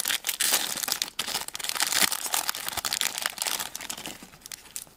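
A blind-bag wrapper being torn open and crinkled by hand: a dense, crackling rustle that thins out near the end.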